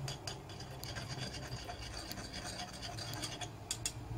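A teaspoon stirring olive oil and ground spices in a small bowl: a quick, continuous rubbing and scraping of the spoon against the bowl, with many light clicks.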